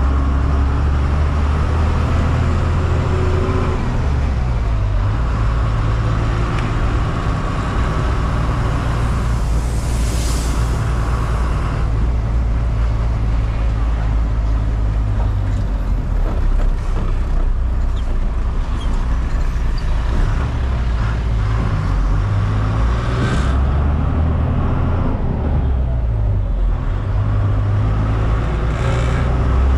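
Tata 1613 truck's diesel engine running while driving, heard from the cab, its low drone shifting in pitch several times as revs change. A few short hisses break through about a third of the way in, again past two thirds, and near the end.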